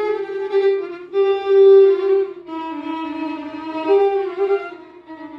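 Music: a slow melody of held notes played on a solo violin, stepping between a few pitches.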